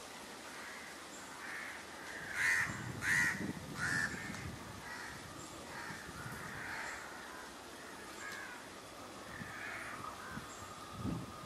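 Crows cawing: three loud caws close together about two and a half to four seconds in, with fainter caws throughout.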